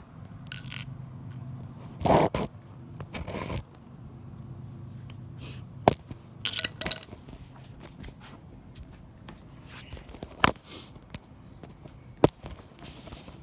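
Handling noise: scattered sharp clicks and knocks with short scraping rustles, as an Allen key and scooter parts are picked up and moved.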